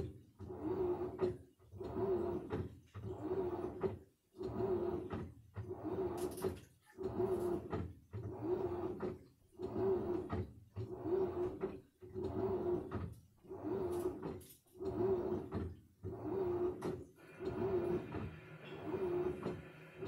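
Samsung front-loading washing machine in its wash cycle: the drum turning the wet laundry, with a motor hum and sloshing that swell and fade in a steady rhythm, roughly every second and a quarter.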